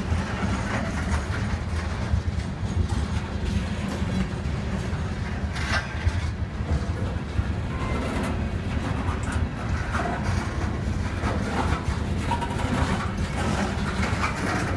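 Covered hopper cars of a freight train rolling past: a steady low rumble of steel wheels on rail, with short clicks and clanks scattered throughout.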